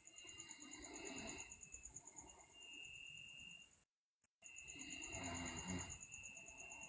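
A sleeping girl snoring: two long, fluttering snores, the first about a second in and the second about five seconds in.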